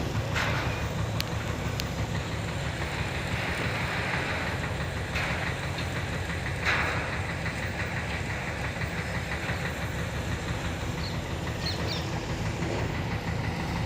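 An engine running steadily at a low pitch, with a few short bursts of noise over it, the loudest about seven seconds in.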